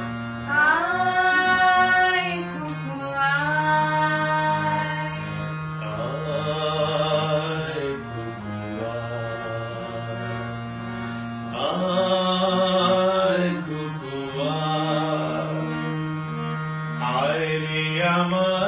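Voices singing a Bengali song together in long, sliding, ornamented phrases, over a steady held accompaniment note that shifts pitch every few seconds.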